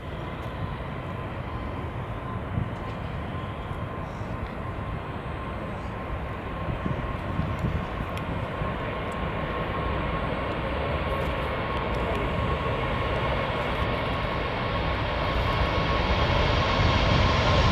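Airbus A380 jet engines at takeoff power during the takeoff roll: a continuous rumble with a steady whine, slowly growing louder as the airliner comes closer.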